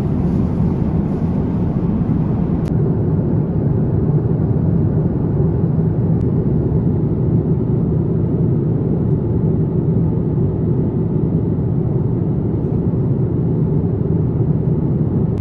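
Steady rumble of a jet airliner heard from inside the passenger cabin, with one short click about three seconds in.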